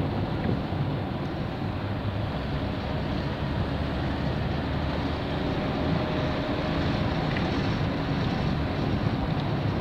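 Ford Sierra 1.8 driving at a steady speed, its engine, tyres and the wind heard as a constant rumble and hiss from inside the cabin.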